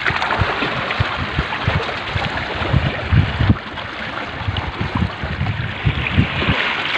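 Wind rushing and buffeting the microphone in irregular low thumps, over a steady wash of sea water.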